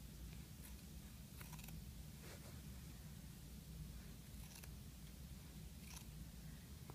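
Small sewing scissors snipping through a shirt collar's seam allowance to trim and grade it, a few faint snips spaced a second or so apart over a low steady hum.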